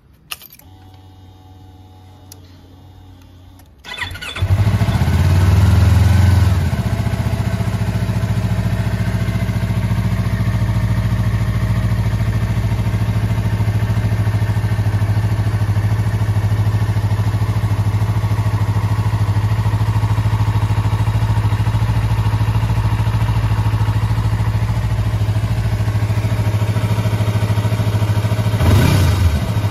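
Yamaha YZF-R25 (2020) 249 cc parallel-twin with an aftermarket muffler: a click as the ignition key is turned and a faint hum of the fuel pump priming, then the engine starts about four seconds in, flares briefly and settles into a steady idle. Two quick throttle blips near the end.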